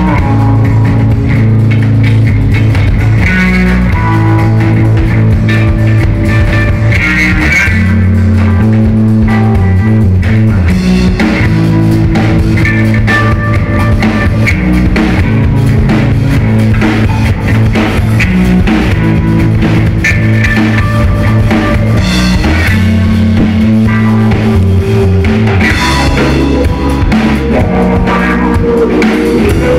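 Live instrumental rock from electric guitars and a drum kit, loud and continuous.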